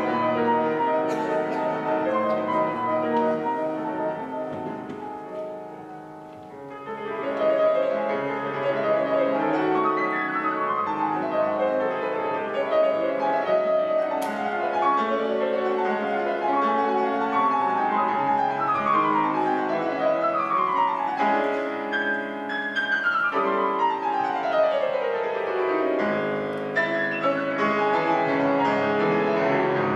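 Steinway concert grand piano playing a classical piece. It softens about five seconds in and comes back loud a second later, and there is a long falling run of notes about three quarters of the way through.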